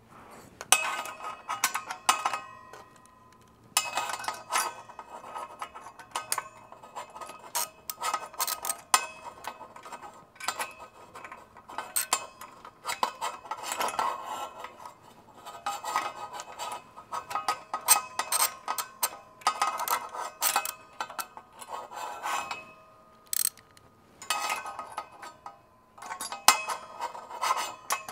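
Metal hand tools and parts being worked: repeated sharp clicks, scraping and clinks in bursts with short pauses between them.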